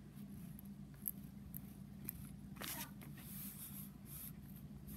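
Faint scratching of a gel pen drawing on notebook paper in short strokes, over a steady low room hum.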